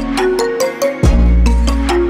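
Electronic end-screen music with a steady quick beat and short bell-like melody notes; a deep bass drops out briefly and comes back about a second in.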